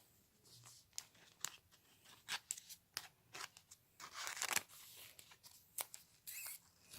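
Faint handling of Pokémon trading cards: scattered small clicks and taps of card against card, with a brief rustling swish about four seconds in.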